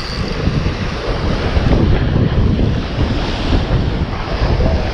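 Ocean surf breaking and washing against lava rock, with strong wind buffeting the microphone in gusts.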